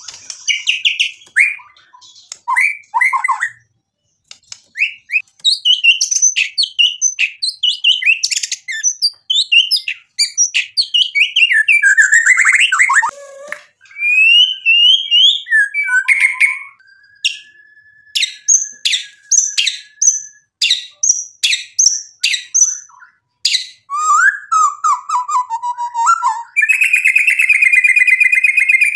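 Male white-rumped shama singing a long, varied song of whistled phrases and rapid chattering notes. About two-thirds of the way through it holds one steady whistle under a run of clicks, and near the end it breaks into a fast buzzy rattle.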